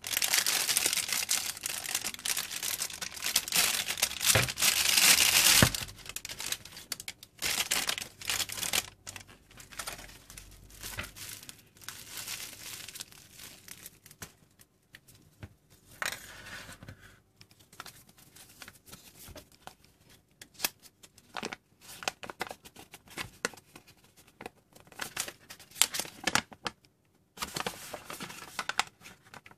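Plastic wrapping and bubble wrap crinkling and tearing as they are pulled off by hand, dense and loud for the first six seconds. After that come intermittent rustles and handling clicks with quiet gaps, and near the end a sheet of paper is unfolded.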